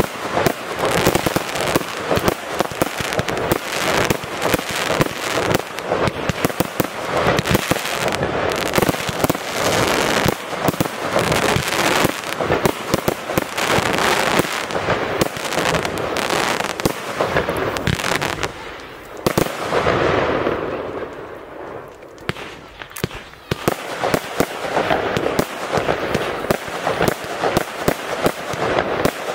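Fireworks display: a dense, rapid string of bangs and crackles that eases briefly about two-thirds of the way through, then picks up again.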